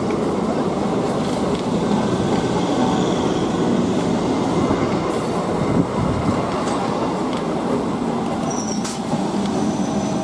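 Electric multiple unit train running on the rails: a steady rumble of wheels and coaches, with a brief high squeal of wheels near the end.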